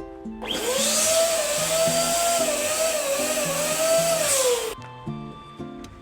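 Electric balloon pump blowing air for about four seconds: a loud rush of air with a wavering whine that rises as it starts and sags just before it cuts off suddenly.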